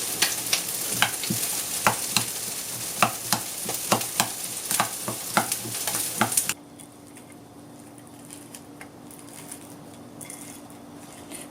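Food sizzling in a frying pan while a utensil taps and scrapes against the pan in quick irregular clicks. About six and a half seconds in, the sizzle cuts off abruptly, leaving a quieter steady low hum with a few faint clicks.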